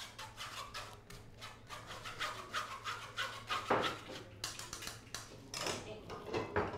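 Rhythmic rasping strokes of something being scraped or rubbed by hand, about three to four a second, with a louder scrape about halfway through and another near the end.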